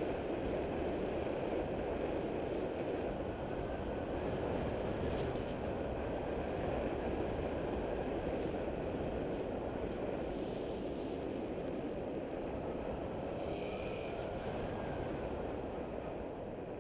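Steady wind rush over the microphone on a moving TaoTao CY150 150cc scooter, with the scooter's engine running underneath at a steady cruising speed.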